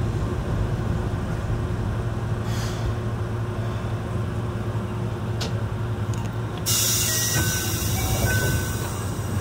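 Keihan Ishiyama Sakamoto Line tram heard from the driver's cab, its equipment giving a steady low hum. About two-thirds through a sudden hiss of air starts and keeps on, with a few short beeps.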